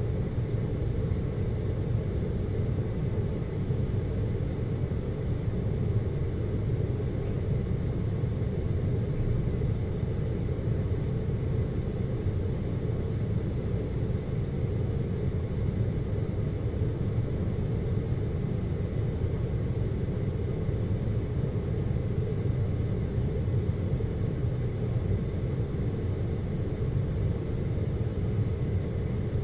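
Steady low rumble inside a moving aerial cable car cabin as it travels along its cables.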